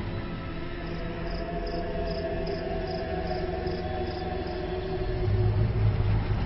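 Crickets chirping in a steady rhythm, about two to three chirps a second, over the low rumble of a car engine running. The engine grows louder about five seconds in as the cricket chirps stop.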